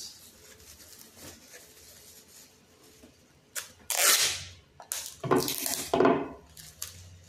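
Clear packing tape pulled off the roll in two loud screeching rips, about four seconds in and again a second later, the second longer, each sliding down in pitch.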